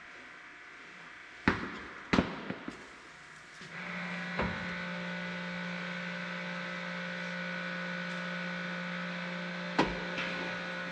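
Two sharp knocks, then a small electric motor starts about a third of the way in and runs with a steady, even hum; one more knock comes near the end.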